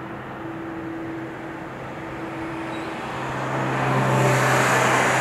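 A motor engine humming steadily with traffic-like noise, growing clearly louder about three seconds in as a deeper hum comes in.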